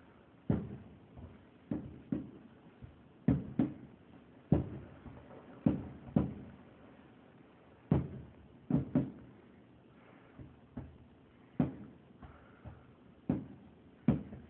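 Fireworks bursting in an irregular run of booms, some in quick pairs, each dying away briefly. They sound muffled, heard from indoors through a window.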